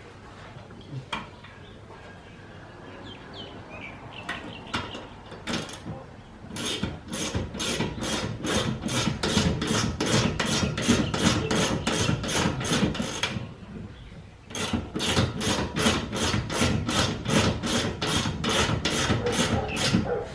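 Hand ratchet worked back and forth on a suspension bolt in quick rasping strokes, about four a second. A few light clicks come first, then two long runs of strokes with a pause of about a second between them.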